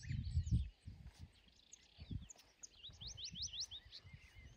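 Wild birds calling and chirping, with a quick run of about six rising whistled notes about three seconds in. Low rumbling thumps come in under them, loudest in the first second.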